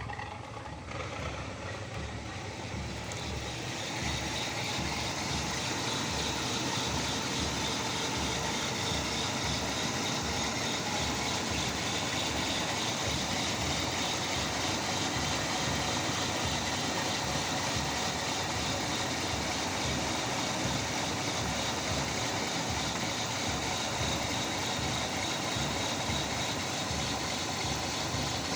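Toyota Kijang Kapsul engine running at idle with its exhaust pulsing evenly, heard just after an oil catch can and a fuel vapour canister were fitted. It gets louder about four seconds in and then stays steady.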